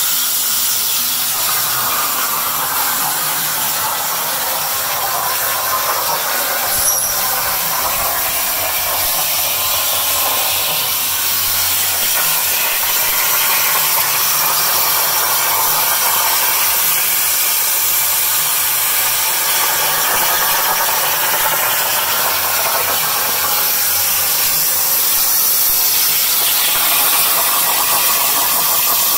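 Plasma cutter torch on an MPCNC machine cutting steel plate: a loud, steady hiss from the plasma arc and its air jet.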